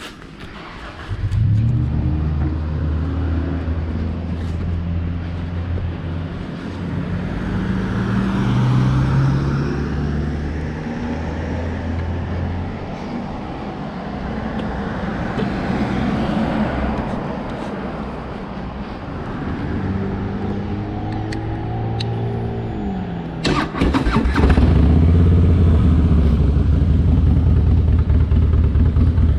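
An engine starts about a second and a half in and runs, its pitch rising and falling. Near the end there are a few sharp clicks, and then it runs louder and steady.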